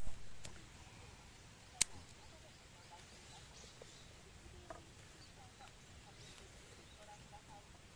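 Small wood fire in a BushBox LF stove crackling: a loud sharp crack right at the start, another about two seconds in, and a few fainter pops, with faint bird chirps underneath.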